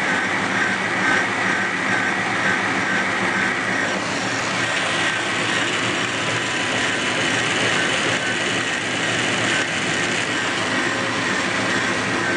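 Car engine running with the alternator and its drive belt spinning: a steady mechanical whir with a wavering high whine, loudest in the first few seconds. The alternator is suspected to be faulty.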